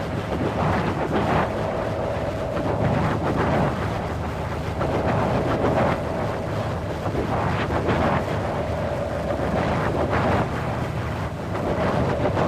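Wind blowing in gusts, rising and falling every second or two, with a faint steady tone running underneath.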